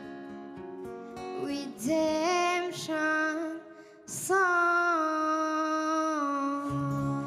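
A boy singing with acoustic guitar accompaniment. Plucked guitar notes come first, then his voice enters about two seconds in with held notes. After a short breath near the middle he sings a long held note that cuts off suddenly.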